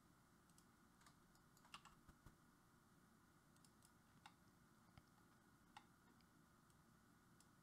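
Near silence with a handful of faint, sharp, scattered clicks from computer mouse and keyboard use.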